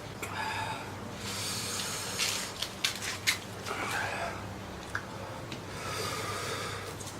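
Close-up eating sounds: a person chewing squid and shrimp, with wet mouth noises and a cluster of sharp smacks and clicks around the middle, over a steady low hum.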